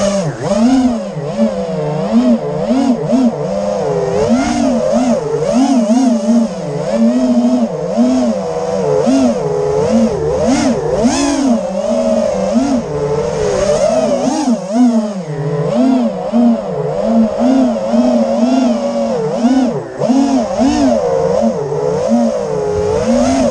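FPV racing quadcopter's motors and propellers whining, the pitch swooping up and down constantly with the throttle.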